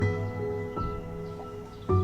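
Instrumental background music: held notes that move to new pitches every half second or so.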